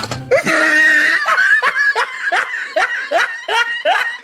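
Snickering laughter in quick, even bursts, about three a second, each bursting upward in pitch.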